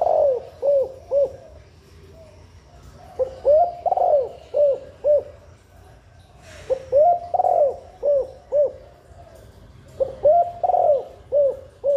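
Female spotted dove cooing: phrases of five or six short, low coos, one phrase about every three and a half seconds.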